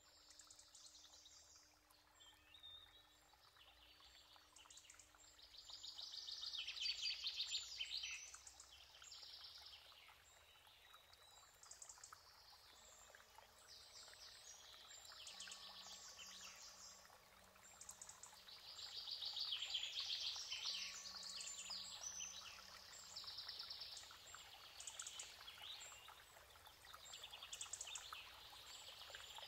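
Faint birdsong: several birds chirping and trilling in fast repeated notes, louder about six seconds in and again around twenty seconds in.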